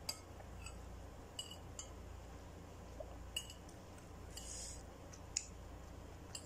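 Metal spoon clinking against a ceramic soup bowl: about six sharp little taps spread through, the loudest a little after five seconds in, with a brief soft rasp a little after four seconds in.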